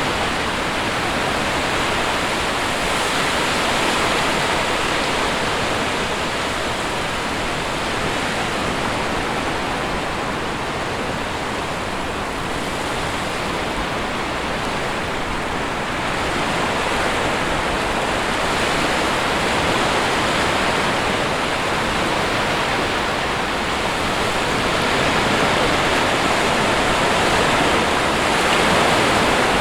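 Sea surf: a steady rush of waves washing on a shore, swelling and easing slowly every several seconds.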